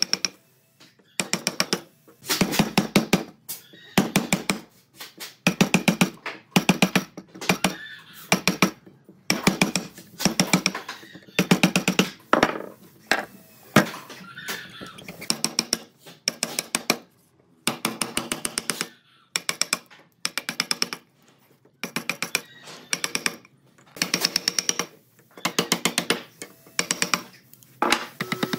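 A power tool rattling out rapid impacts in short bursts of about a second each, stopping and starting again over and over with brief pauses.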